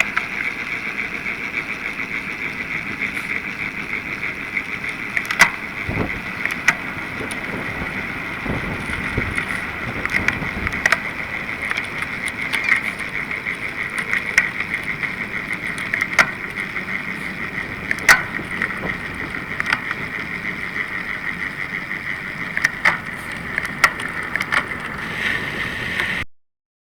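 Riding sound recorded on a bicycle and sped up threefold: steady wind and road noise with a constant high buzzing band and scattered sharp clicks, cutting off suddenly near the end.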